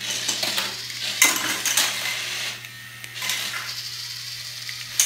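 Hexbug BattleBots remote-control toy robots clattering and knocking against each other and the plastic arena: a run of sharp plastic clicks and hits, loudest about a second in and sparser in the second half.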